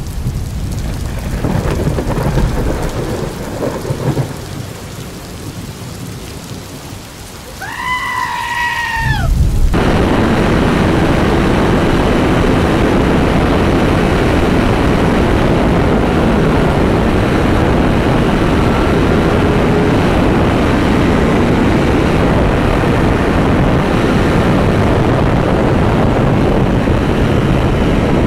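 Thunder rumbling and fading off, then heavy rain coming down in a loud, steady hiss from about ten seconds in. A brief wavering tone rises and falls just before the rain starts.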